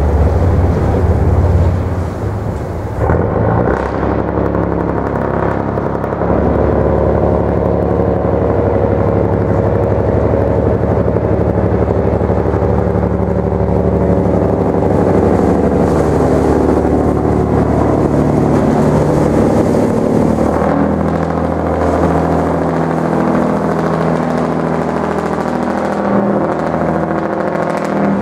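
Tugboat's diesel engine running steadily, a continuous drone whose pitch shifts a little now and then as the boat works through the river ice.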